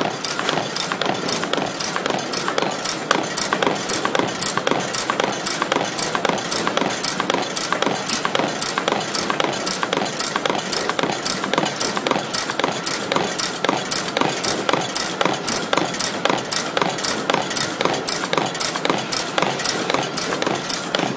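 Galaxo PRO780LB crash-lock box folder-gluer running: a steady mechanical rush with a sharp, even clatter about twice a second.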